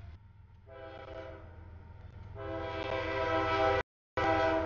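Freight locomotive air horn sounding for a grade crossing: a chord of several steady tones that comes in softly about a second in and gets much louder halfway through, over the low rumble of the approaching train. The sound cuts out abruptly for a moment near the end.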